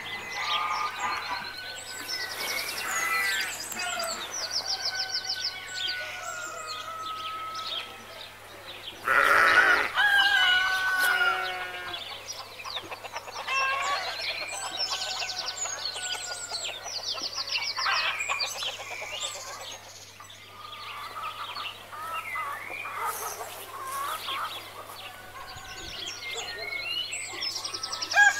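Farmyard ambience: songbirds chirping and trilling throughout, with chicken and rooster calls and a louder animal call about nine seconds in.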